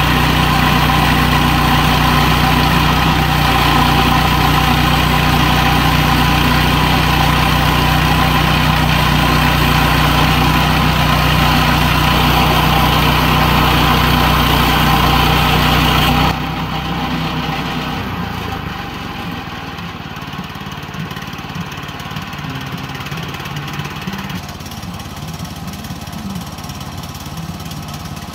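Woodland Mills HM122 portable bandsaw mill running, its gas engine at a steady speed as the band blade saws through a log. About 16 seconds in the sound drops abruptly to a quieter engine rumble.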